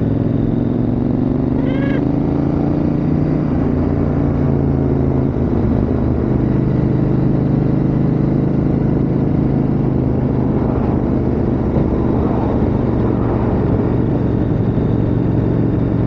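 KTM 890 Adventure R's parallel-twin engine running steadily at cruising speed under a rider and pillion, its pitch rising slightly in the first few seconds, with wind noise from riding.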